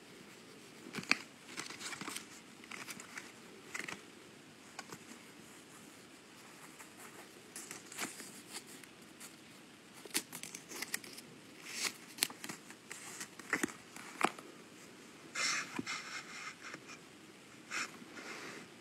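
Quiet handling of a plush toy: fingers rubbing its plush fabric, sewn label and paper hang tag in scattered short rustles, crinkles and light clicks, with a longer crinkle a little after the middle.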